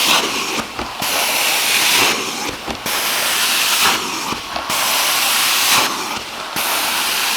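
Carpet-cleaning extraction wand hissing in repeated strokes, the spray and suction cutting in and out about every second and a half.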